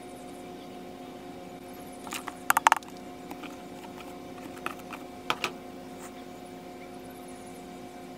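Light clicks and taps of hands working inside a glass jar, knocking against the glass while setting things in place: a quick cluster about two and a half seconds in and a few more around five seconds. A steady low hum runs underneath.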